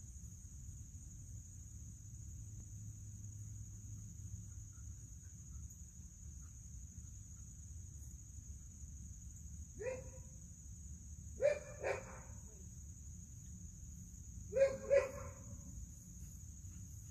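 A dog barking, about five sharp barks in three short groups in the second half, over a steady high drone of insects and low wind rumble.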